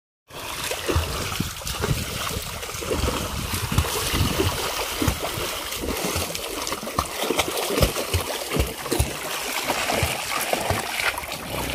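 Water splashing and sloshing as swimmers kick and thrash in a small concrete tank, with irregular dull thumps throughout.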